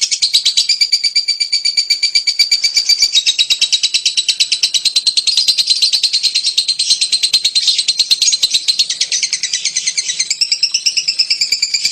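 Lovebird in a long, unbroken chattering song (ngekek): a fast string of high, shrill notes, several a second, that steps in pitch about three seconds in and changes its pattern near the end.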